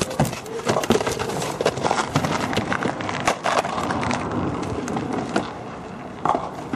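Irregular knocks and clatter over a steady noisy background.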